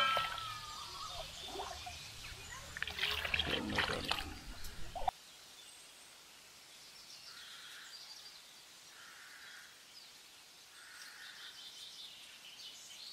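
Boiled goat tripe being squeezed and rubbed by hand in a pan of water, with wet splashing and squelching. About five seconds in it cuts off to quiet outdoor ambience, with faint bird calls about every two seconds.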